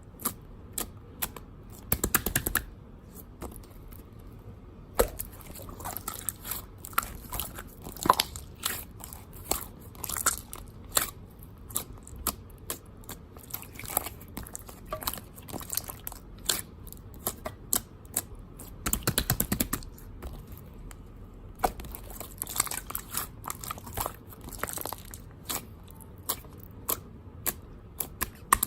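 Irregular close-up crunching and clicking, with dense clusters of rapid clicks about two seconds in, near the middle and again a little later.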